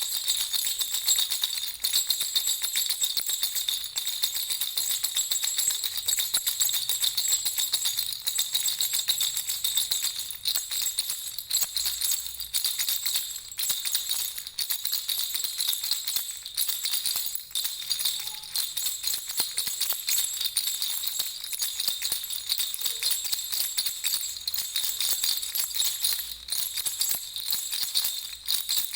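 Baby's jingle rattle (jhunjhuna) shaken continuously, its small bells jingling in a fast, unbroken shimmer.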